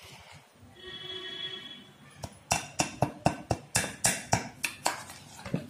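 A spoon clacking against a metal bowl while stirring thick chocolate paste, in a regular run of sharp clicks about three to four a second. A brief ringing tone sounds about a second in.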